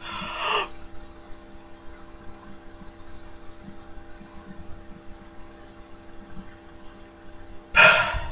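A person takes a short, quick breath in, holds it for about seven seconds while only a steady electrical hum is heard, then lets it out in a loud gasp near the end.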